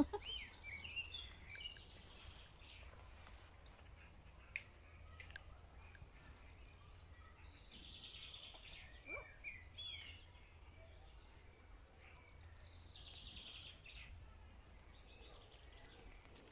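Faint birdsong: songbirds singing short phrases of quick chirps and whistles, returning every few seconds, over a low steady rumble.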